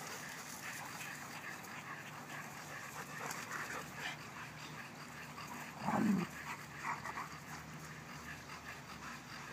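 Dogs panting while they romp together on grass, with one short, louder noise about six seconds in.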